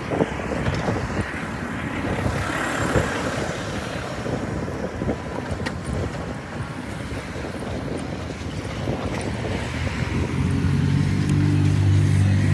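Street traffic on a wet road heard while riding along: a steady haze of passing cars and tyres with scattered knocks. From about ten seconds in, a city bus's engine running close by adds a steady low hum that grows louder.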